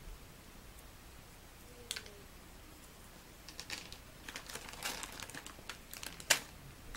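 Small plastic zip bags crinkling and light clicks of safety pins and beads as they are handled and picked out by hand. There is a single click about two seconds in, then an irregular run of clicks and crinkles through the second half, the sharpest near the end.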